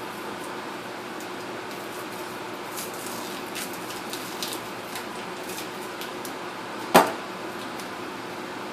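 Steady fan-like hum with faint rustling and light clicks, then a single sharp knock about seven seconds in.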